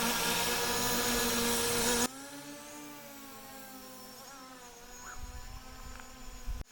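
Quadcopter drone's propellers buzzing with a steady, pitched whine. It is loud at first, then drops abruptly about two seconds in to a fainter hum that shifts slightly in pitch.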